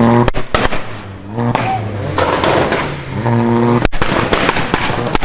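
VW Golf R's turbocharged four-cylinder engine revved in sharp blips, three times, each lift-off followed by a string of loud pops and crackles from the exhaust. The cracking runs on thickly near the end.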